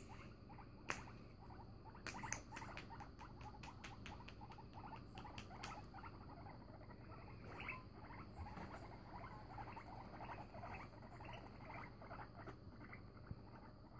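Two guinea pigs making faint, quick clicks and chirps as they face off, tense at a failed introduction. The clicks come thickest in the first half, then thin out.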